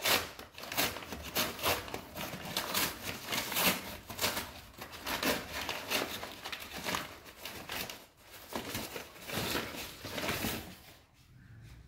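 Product packaging being handled and opened: irregular crinkling, rustling and tearing of plastic and cardboard, dying down near the end.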